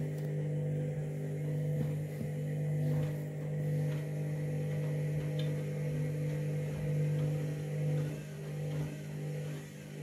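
Candy front-loading washing machine's drum motor humming as it slowly tumbles a wet load of bedding. The hum swells and eases as the drum turns. The machine is still trying to balance the load before the final spin.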